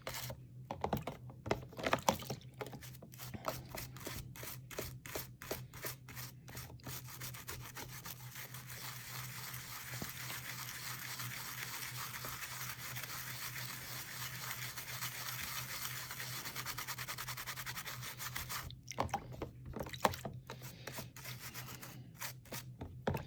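A brush scrubbing softened, degreaser-soaked paint off a plastic model car body: separate short strokes at first, then a longer spell of steady, continuous scrubbing, then short strokes again near the end.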